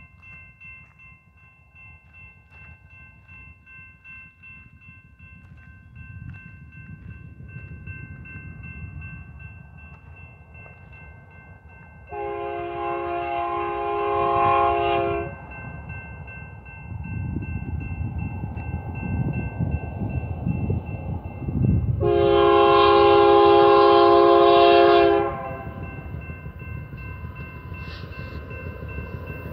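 Lead locomotive of a BNSF double-stack container train, a GE Dash 9-44CW, sounding its air horn in two long chords about ten seconds apart as it approaches a grade crossing. The rumble of the locomotives grows louder between the blasts, while a crossing-signal bell rings steadily throughout.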